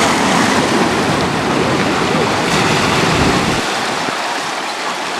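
Sea water washing and surging among the rocks, with wind buffeting the microphone as a low rumble that drops away about three and a half seconds in.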